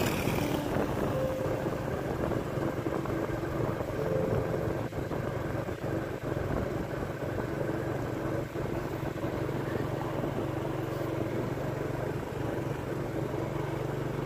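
Motorcycle engine running steadily while riding along a road, a steady low engine sound with road noise.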